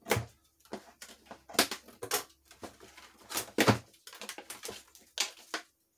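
Cardboard box being handled and its plastic packing straps pulled off: a run of sharp scrapes, snaps and rustles, the loudest about a second and a half, two, and three and a half seconds in.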